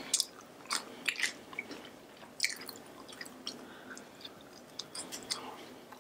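A person chewing and biting food close to the microphone, with irregular mouth clicks throughout.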